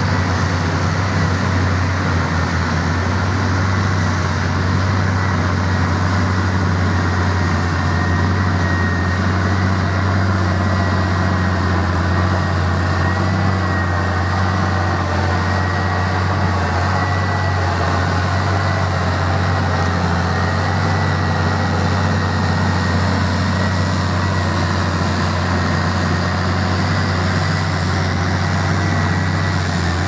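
Case IH tractor engines running steadily under load while pulling reversible ploughs through stubble: a constant low drone with a thin, slightly wavering high whine.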